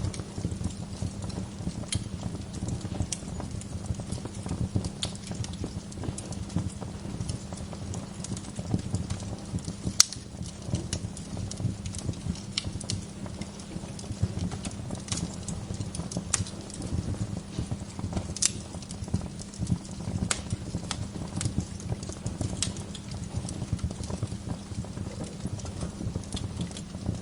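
Wood fire crackling in a fireplace: a steady low rumble with irregular sharp pops and snaps, the loudest pop about ten seconds in.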